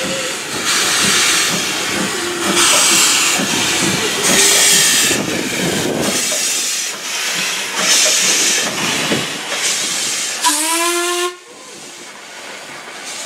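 Ivatt Class 2MT 2-6-0 steam locomotive working slowly past with its cylinder drain cocks open: loud hissing chuffs of steam about every second and a half. About ten seconds in it gives one short whistle blast that rises slightly at the start.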